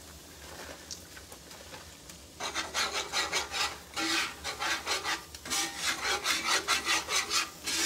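Metal whisk scraping and stirring flour into hot grease in a cast iron skillet, starting a few seconds in as quick repeated strokes, about two to three a second. This is the start of mixing a roux.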